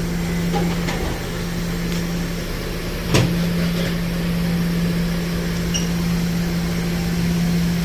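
Steady machine hum, with a single sharp click about three seconds in.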